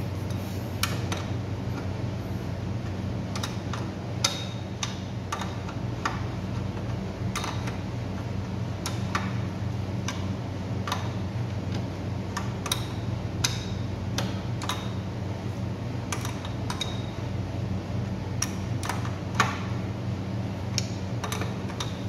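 Irregular sharp metal clicks and ticks of a wrench being worked on the rear axle nut of an electric scooter's hub motor, over a steady low hum.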